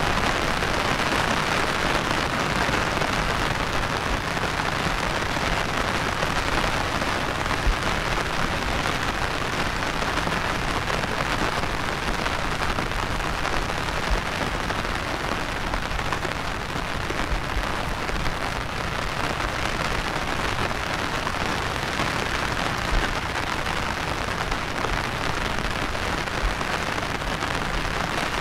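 Heavy rain falling steadily, a dense even hiss with a few sharper drop hits now and then.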